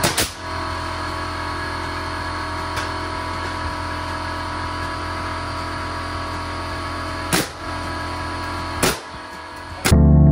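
Pneumatic framing nailer firing into framing lumber: a sharp shot at the start and two more about 7.5 and 9 seconds in, over a steady mechanical drone. Guitar music comes in just before the end.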